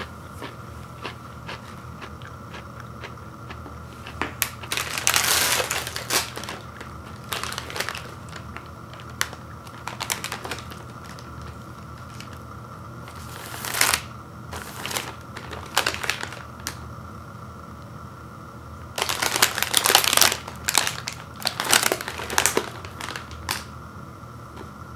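Plastic wrapper of a family-size Oreo Thins cookie package crinkling in irregular bursts as it is handled and its reclosable flap is pressed shut.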